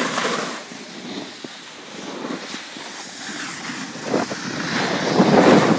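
Wind rushing over the microphone mixed with the hiss and scrape of snowboards sliding on snow, swelling louder towards the end.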